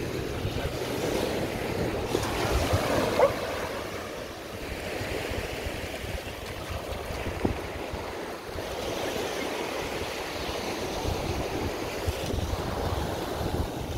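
Surf washing onto a sandy beach, with wind gusting against the microphone.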